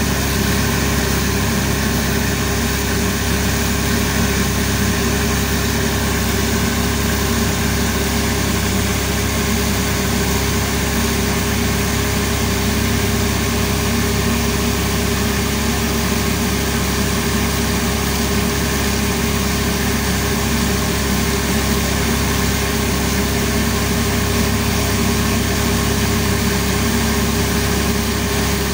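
Motor of a gold-jewellery cutting (chilai) machine running with a steady, unchanging hum.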